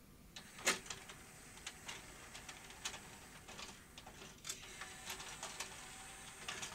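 Sony CHC-CL5MD's CD auto-changer mechanism running its power-up shuffle: faint mechanical ticking and clicking, with a sharper click just under a second in and another at about four and a half seconds.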